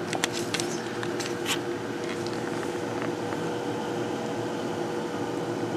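Steady background hum with a faint, even whine, like a fan or air conditioning running. A few light clicks come in the first second and a half.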